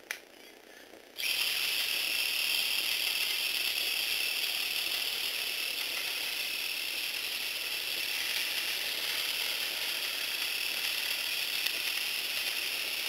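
Small electric motor and plastic gearbox of a Lego propeller vehicle whirring as it spins the propeller. The high-pitched whir starts suddenly about a second in, just after a click, and runs on steadily.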